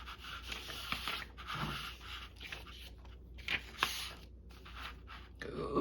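Craft materials being handled on a tabletop: soft scraping and rustling, with a couple of sharper taps about three and a half seconds in.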